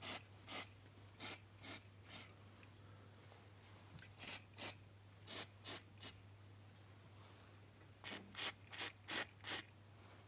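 Faint short rubbing strokes, a few a second, coming in groups with pauses between, over a steady low hum.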